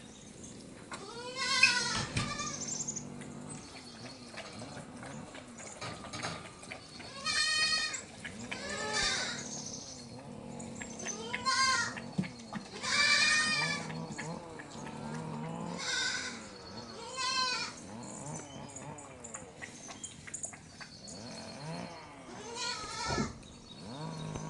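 Puppies yelping and squealing in rough play: a string of short, high-pitched cries, one every second or two.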